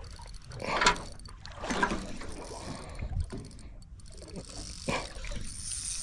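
Water slapping against the hull of a small boat drifting at sea, in a few short irregular splashes over a low rumble of wind on the microphone.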